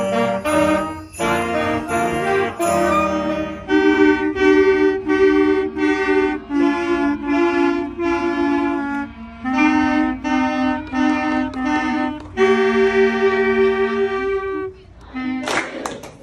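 A student band playing sustained notes, then a clarinet and a saxophone playing a slow melody together in two parts. Clapping starts near the end.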